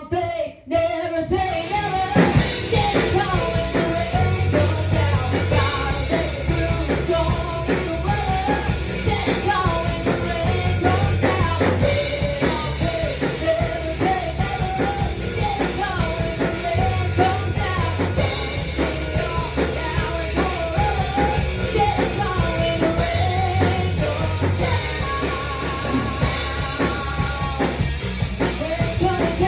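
A band rehearsing a song: a singer carrying the melody over a drum kit and a low bass line.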